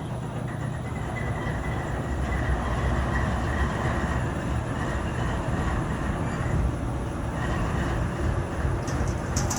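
Diesel freight locomotive running, a steady heavy rumble with a steady high whine above it; a few sharp ticks near the end.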